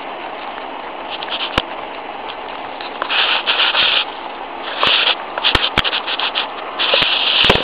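Lop rabbit chewing watermelon close to the microphone: rapid, wet crunching that comes in bunches, with a few sharp clicks, over a steady hiss.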